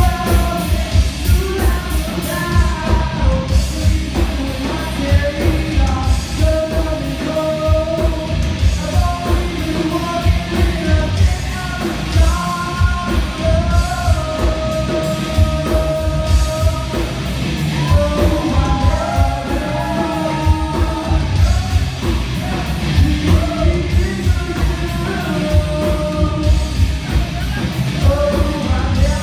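A rock band playing live and loud, with a steady, driving drum beat and a singer's voice over it.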